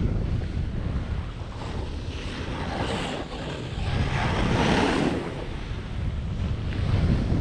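Wind rumbling on the microphone during a splitboard descent, with the hiss of the board scraping over crusty snow swelling about three seconds in and again around four to five seconds in.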